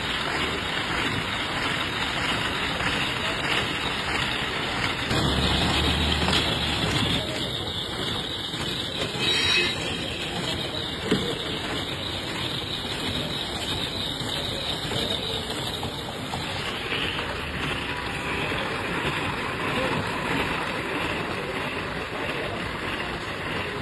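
Steady mechanical rumble of a roller ice cream machine's motor-driven rotating drum, with street noise behind it. A heavier low rumble about five to seven seconds in, and a single sharp knock about eleven seconds in.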